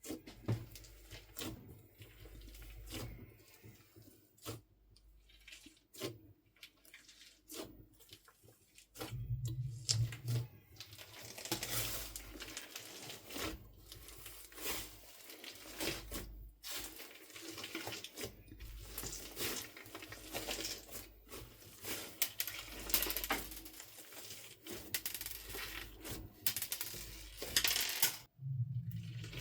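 Slime being kneaded together with soft clay by hand: a rapid, irregular run of sticky clicks, pops and crackles, thicker from about a third of the way in.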